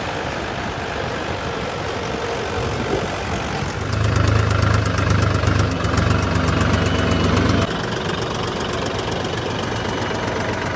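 Heavy diesel engine running at idle with a knocking clatter. About four seconds in it grows louder and deeper, then drops back abruptly to a steady idle about halfway through.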